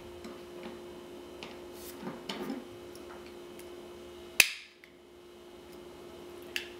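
Metal parts of an HK416 .22 trigger assembly clicking and tapping as the top plate is pressed back onto the housing, with one sharp click about four and a half seconds in.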